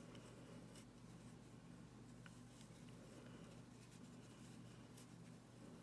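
Near silence: a steady low hum, with faint scratchy rustles and a few soft clicks of yarn being worked with a crochet hook.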